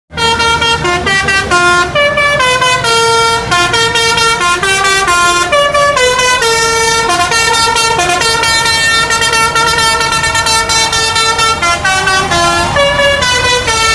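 Multi-tone 'telolet' horn on a diesel locomotive playing a fast, unbroken melody, with several horn notes sounding together and changing two to three times a second, over a low engine rumble.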